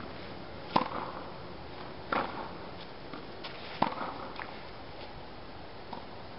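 Tennis balls struck by rackets in a rally: three sharp pops about a second and a half apart, with a few fainter knocks between them, over a steady background hiss.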